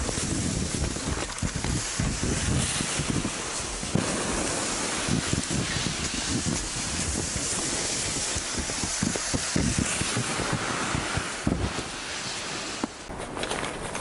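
Wind buffeting the microphone over a steady hiss from a loaded sled being hauled across snow. Near the end the rumble drops away and a few sharp clicks follow.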